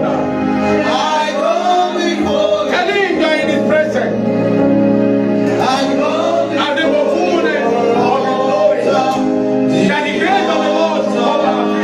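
Gospel music in a church: sustained keyboard chords with voices singing over them.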